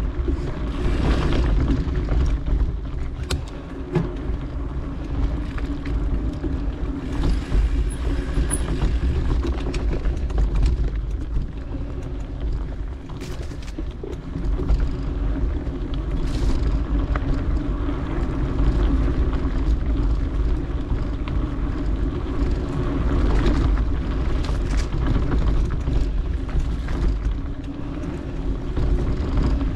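A mountain bike riding fast down a dirt singletrack: wind buffets the camera microphone in a steady deep rumble, and the tyres rumble over the dirt. The bike knocks and rattles a few times on bumps.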